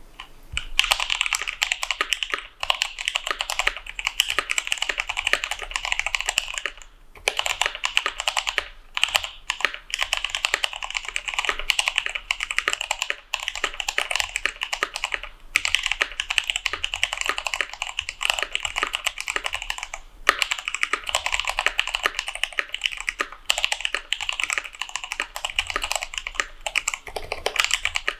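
Fast continuous typing on a mechanical keyboard with spray-lubed Kailh Speed Copper tactile switches on a brass plate with case foam: rapid light clacks in runs, broken by short pauses every few seconds.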